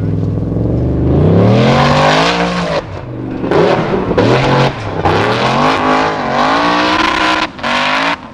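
Formula Offroad buggy's engine revving hard under full load as it climbs a steep gravel hill. The pitch rises and falls again and again as the throttle is worked, and the sound drops out briefly near the end.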